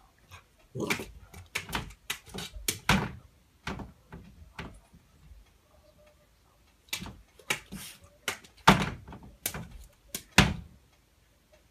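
A series of irregular knocks and thumps, a dozen or more, with a quieter stretch in the middle.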